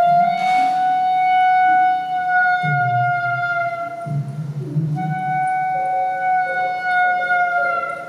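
Solo clarinet holding long notes that bend slightly in pitch: one long note, then a second from about five seconds in that sags gently at its end. Low, rough electronic sounds come and go underneath.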